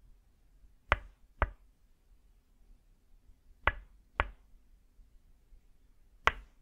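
Tok sen massage: a wooden mallet (khon) striking a wooden stake (lim) held against a person's back. It gives sharp wooden knocks in pairs about half a second apart, a pair every two and a half seconds or so: two pairs, then a single knock near the end.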